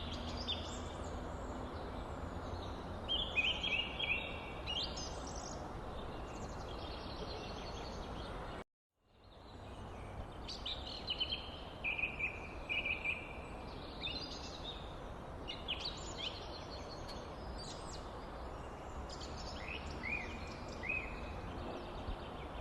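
Small birds chirping and calling repeatedly over a steady background hiss. The sound cuts out abruptly for about half a second around nine seconds in, then fades back up.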